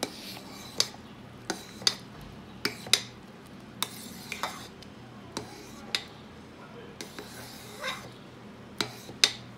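A spatula stirring thick hot-process soap batter in a Crock-Pot slow cooker's crock, scraping and knocking against the pot in about a dozen irregular clicks, the sharpest near the end.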